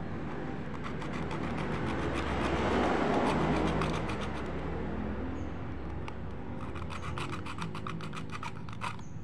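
Hacksaw blade sawing through PVC pipe by hand: a continuous rasping scrape that is loudest about three seconds in, then quick, distinct back-and-forth strokes.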